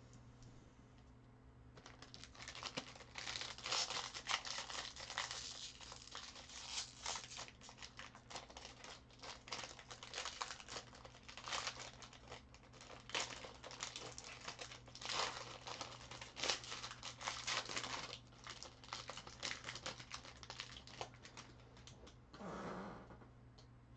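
Trading card pack wrapper being torn open and crinkled by hand. It makes a dense, irregular run of crackles that starts about two seconds in and dies down near the end.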